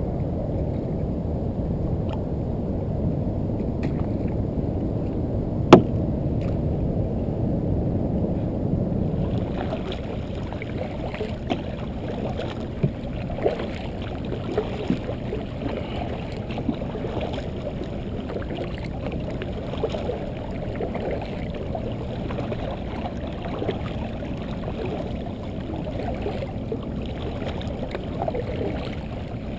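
Water sloshing and gurgling against a kayak hull, with a low rumble for the first nine seconds and a single sharp knock about six seconds in. After that the sound turns brighter, with small splashes and ticks as the kayak is paddled.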